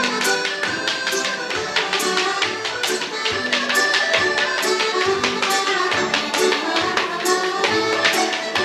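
Lively fiddle dance tune with many quick, sharp taps sounding over it in a steady rhythm.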